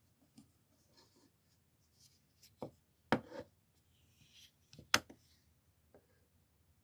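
Quiet handling of a folding pocket knife: scattered light clicks and rubbing, with a few sharper clicks, the loudest about five seconds in.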